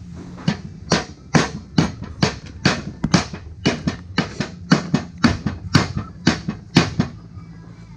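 Repeated knocks, about two a second, as the jet ski engine's cylinder is struck to break it loose from the crankcase.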